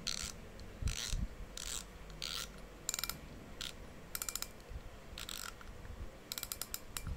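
Penn Spinfisher VI 4500 spinning reel worked by hand at the spool, giving about ten short bursts of rapid ratcheting clicks.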